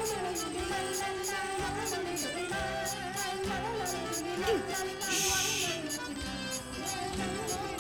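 Cartoon background music: a wavering melody over chords and a steady beat, with a brief hiss about five seconds in.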